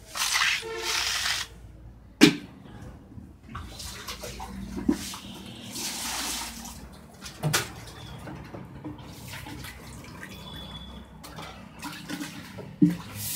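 Wet plaster of Paris slurry being poured and spread over a perforated chalk mould, splashing and sloshing in two spells. There are a few sharp knocks in between, the loudest about two seconds in.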